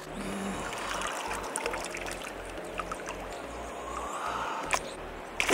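Running river water, a steady rushing and trickling, with a sudden louder burst right at the end.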